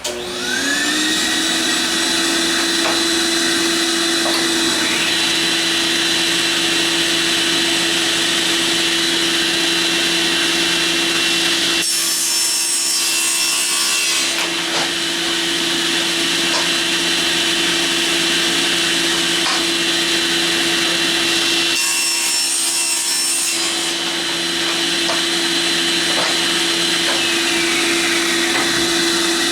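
An electric woodworking power tool's motor spins up at the start and runs at a steady whine, working wood. Twice, about twelve and twenty-two seconds in, a harsher rasping noise rises over the whine for about two seconds, as the tool bites into the wood.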